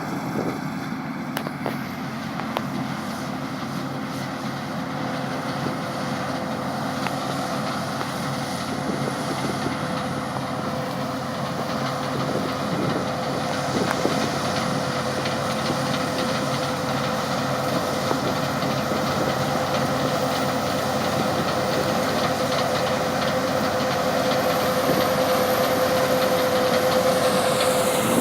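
Combine harvester running steadily during a wheat harvest, with a steady whine that grows louder toward the end as the machine comes closer or works harder.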